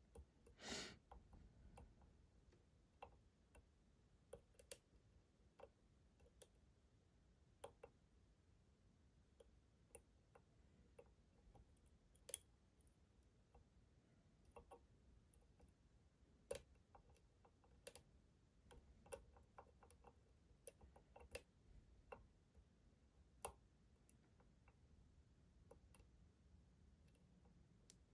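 Faint, irregular clicks of lock picks working the pins inside a Schlage Primus Everest high-security lock cylinder.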